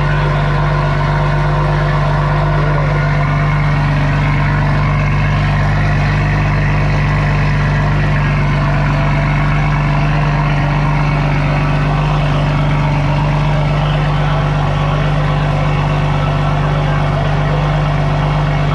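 2020 Toyota Supra engine idling steadily through a Boost Logic titanium non-valved cat-back exhaust, a loud, even drone with no revving.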